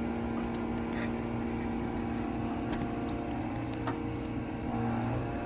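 A steady mechanical hum holding a few even tones, with several light clicks and taps from hands working around the engine bay.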